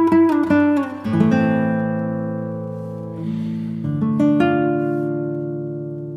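Background music on acoustic guitar: a run of quick plucked notes, then a chord left to ring out and fade, with a second chord struck about four seconds in.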